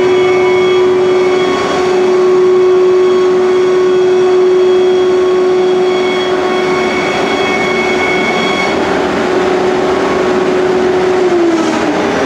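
Selexx CNC router spindle running and cutting through MDF board: a steady whine over a broad rushing noise. The whine dips slightly in pitch near the end.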